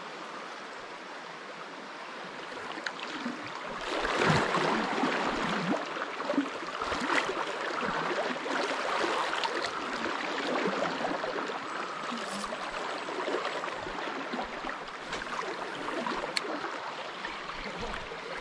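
River water flowing, with sloshing and splashing that gets louder about four seconds in, as of someone wading through the current.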